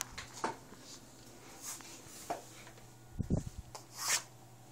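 Soft handling noises from a handheld camera being moved about: scattered light clicks and brief rustles, with a low thump about three seconds in, over a faint steady hum.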